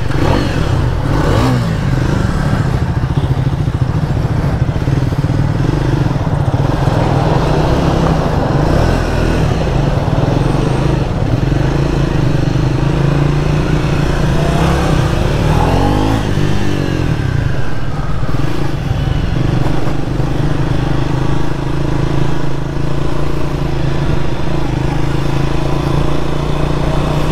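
Triumph Speed 400's 398 cc single-cylinder engine running while riding along, its pitch rising and falling in places around the middle as the throttle changes.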